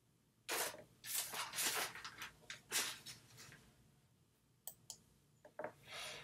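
Rustling and handling noises, like a sheet of paper being moved, for about three seconds, then two light clicks and a last short rustle near the end.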